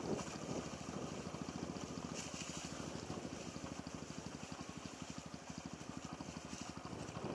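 Yamaha XTZ125's single-cylinder four-stroke engine running steadily with an even, closely spaced pulse.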